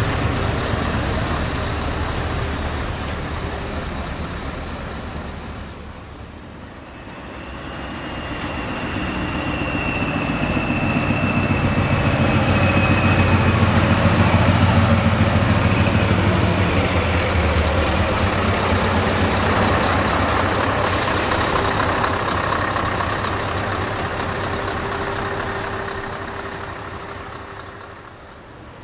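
Heavy diesel trucks running as they roll slowly past close by, loudest as one passes about halfway through. A thin high whistle runs for several seconds, and a short hiss of air comes later.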